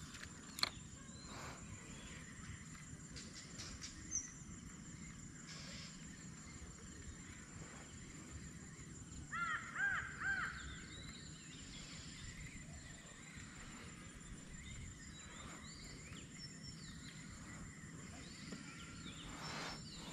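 A crow cawing, a quick run of four or five caws about halfway through, over a faint steady background with a thin high-pitched hum. A single sharp click sounds just after the start.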